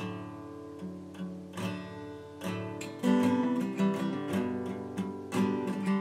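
Intro music on acoustic guitar, chords strummed and picked in a steady rhythm, growing fuller and louder about halfway through.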